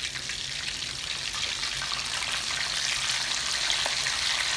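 Breaded stuffed green chillies deep-frying in hot oil in a kadai: a steady crackling sizzle that grows a little louder toward the end.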